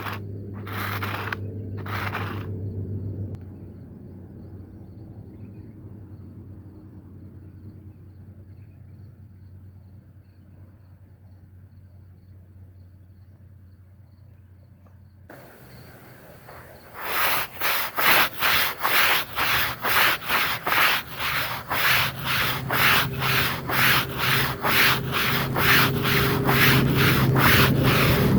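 A wet rug being scrubbed by hand in rapid, even back-and-forth strokes, about two a second. The scrubbing is sparse at first, near silent through the middle, then resumes strongly about two thirds in. A steady low hum runs underneath.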